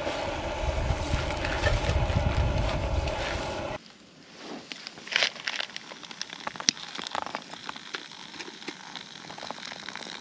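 A loud steady rushing noise with a deep rumble for the first few seconds, cutting off abruptly. Then a campfire crackles and pops with scattered sharp clicks.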